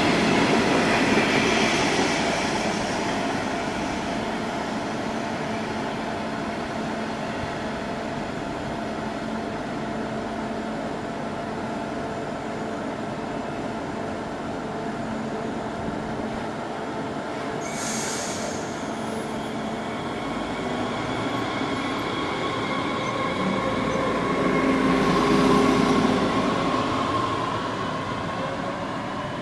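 DB class 422 S-Bahn electric multiple unit pulling out of the station, its traction drive whining over the rumble of the wheels on the rails. There is a brief hiss about 18 seconds in. The noise swells to its loudest as the end of the train passes close by, and the whine rises in pitch as it gathers speed.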